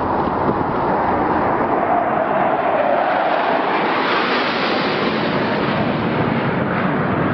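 Sukhoi Su-24 jet passing low overhead: continuous jet engine noise with a tone falling in pitch about two to three seconds in, loudest and brightest around four to five seconds in. Wind buffets the microphone throughout.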